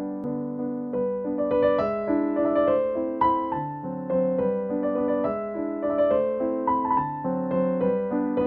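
Background piano music: a gentle waltz played as a steady run of struck notes.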